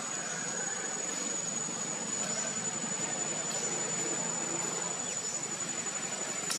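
Insects, crickets or cicadas, keeping up one steady, unbroken high-pitched trill.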